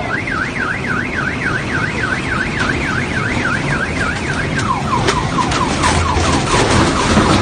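Car alarm sounding over the steady rush of a flowing torrent of mud, water and debris. The alarm warbles rapidly up and down, then about two-thirds through switches to repeated falling sweeps, with a few knocks near the end.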